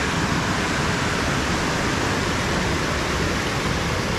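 Steady rushing of water tumbling and churning below a dam, an even, unbroken noise.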